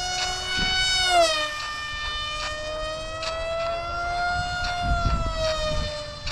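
Radio-controlled model airplane flying past with its motor whining at a high, steady pitch. The pitch drops sharply about a second in as it passes, then slowly rises and falls again.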